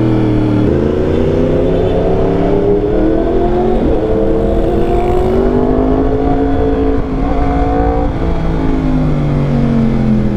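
2021 Yamaha R1's crossplane inline-four on a loud aftermarket exhaust, accelerating through the gears. The engine note climbs in long sweeps and drops at each gear change, about one, four and eight seconds in, then eases off near the end.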